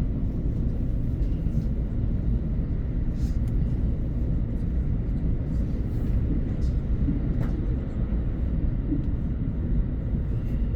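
Steady low rumble of a train running, with a few faint light clicks now and then.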